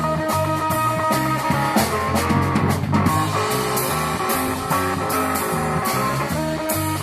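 Live rock band playing without vocals: electric guitar over a drum kit, with a steady cymbal beat.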